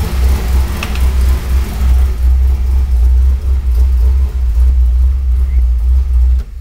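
The newly fitted engine of a Pontiac Trans Am KITT replica runs at idle with a loud, low, pulsing rumble that stops abruptly just before the end.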